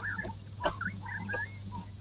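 Small birds chirping in short, quick repeated calls, with footsteps on paving about every two-thirds of a second, over a steady low hum.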